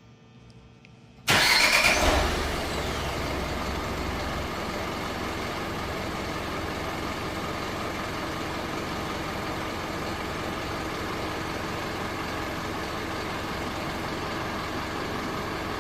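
Hyundai All New Mighty truck's diesel engine being remote-started: after about a second of near quiet it starts suddenly and loudly, then within about a second settles into a steady idle.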